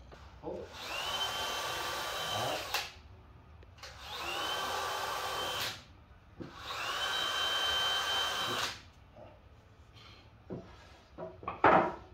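Cordless drill driving screws into a 2x6 lumber frame: three runs of about two seconds each, each starting with a rising whine and stopping abruptly. A couple of sharp wooden knocks near the end, the last one the loudest sound.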